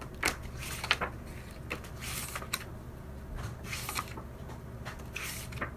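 Stiff cardboard pages of a children's board book being flipped by hand: a string of short rustles, scrapes and light taps as pages turn and drop flat.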